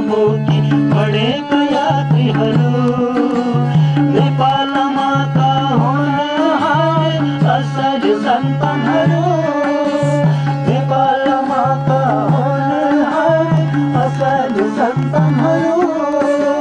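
Nepali folk-style song music: a hand drum keeps a steady, even beat under a wavering melody line.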